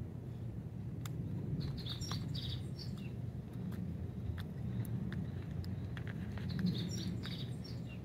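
Small birds chirping in two short spells, about a second and a half in and again near the end, over a steady low background rumble, with a few faint clicks.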